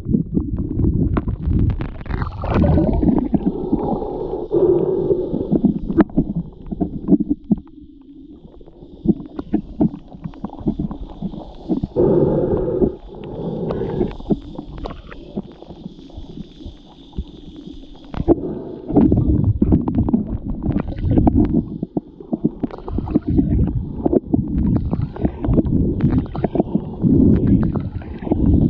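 Muffled underwater water movement against a submerged microphone: a low churning and gurgling full of small crackles and clicks. It eases for several seconds in the middle, when a faint high hiss comes in, and then swells again.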